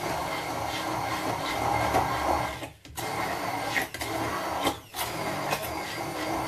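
Electric blender motor running, pureeing a thick tuna sauce, cut off briefly twice in short pulses.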